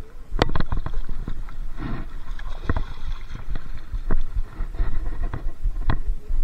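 Scattered knocks and clicks over a low rumble: handling noise from fishing gear being gripped and moved, picked up by a body-worn camera.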